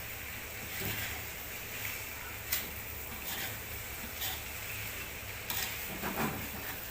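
Camel meat sizzling in a frying pan, a steady hiss with a few sharp clicks of a utensil against the pan.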